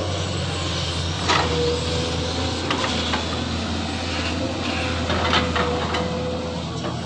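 SANY hydraulic excavator running, a steady low engine drone with a steady whine above it, and several sharp knocks through the middle.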